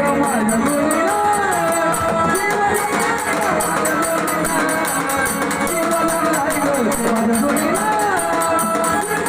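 Marathi devotional folk song: a voice singing a gliding, ornamented melody over quick, steady jingling percussion.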